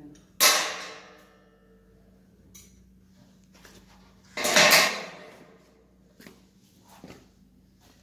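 Loud metallic clangs from metal parts being handled during cable tray installation: a sharp ringing clang just under half a second in, and a longer clattering one about four and a half seconds in, followed by a few light knocks.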